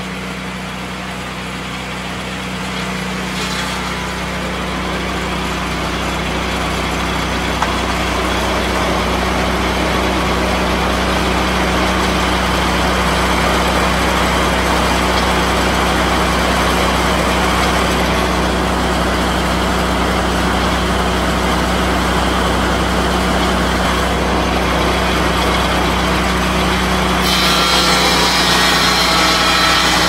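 Lucas swing-blade portable sawmill running, its engine holding a steady note under load as the circular blade saws lengthwise along a log. The sawing grows louder over the first several seconds and turns harsher and brighter near the end.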